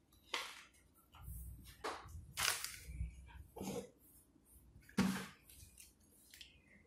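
Paper pages of a spiral-bound picture book being turned and handled: a few short, soft rustles and taps, with a low handling rumble during the page turn.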